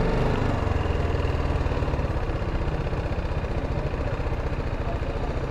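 BMW G310GS's single-cylinder engine idling steadily, a quick even low pulsing.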